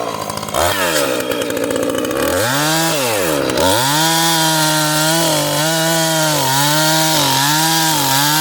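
Husqvarna 445 two-stroke chainsaw revving: it runs up and falls back twice, then is held near full throttle with repeated short dips in pitch.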